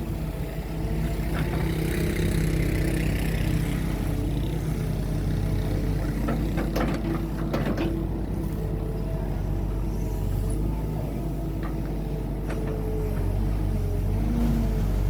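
Excavator's diesel engine running steadily, with a few sharp knocks about seven to eight seconds in.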